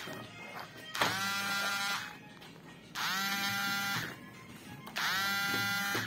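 Abba top-load washing machine's error alarm beeping: a buzzy tone about a second long, repeated three times at two-second intervals, each tone dipping briefly in pitch as it starts. The alarm signals the machine's E3 error code.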